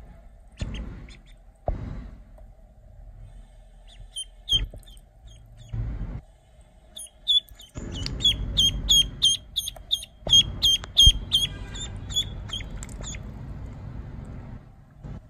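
A duckling peeping: short high chirps, a few at first, then a quick run of about three a second in the middle, over the slosh of water in a plastic basin as it swims, with a few knocks early on.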